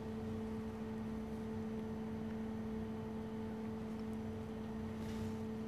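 Room tone: a steady low hum under a faint even hiss.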